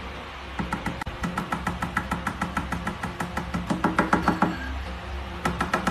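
Rapid tapping on a glass table top, about five taps a second, each with a short ring; the taps stop briefly near the end, then a few more follow quickly.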